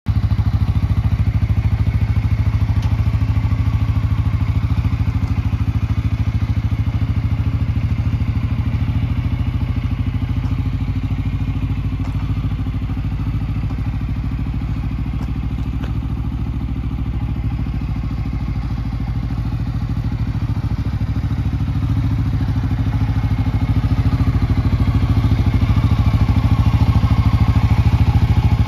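CFMOTO 4x4 ATV engine idling steadily, growing louder over the last few seconds.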